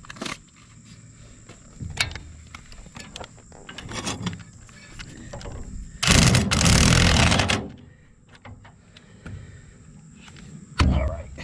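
A power impact wrench runs in one burst of about a second and a half on a mower blade bolt, with metal clanks and clicks of the tool and parts being handled before it.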